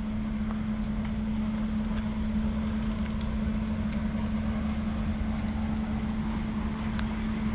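A vehicle running: a steady low rumble with a constant hum that does not change.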